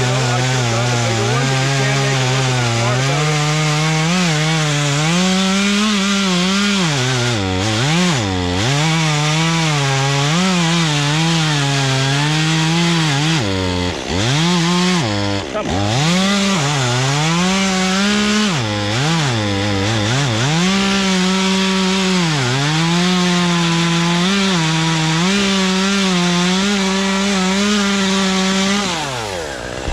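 Chainsaw running at high revs and cutting wood, its engine pitch sagging and recovering over and over as the chain bites into the cut. Near the end the engine drops back toward idle.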